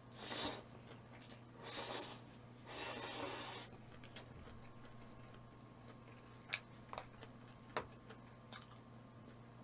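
Close-up eating sounds: three short slurps in the first four seconds, then a few faint clicks.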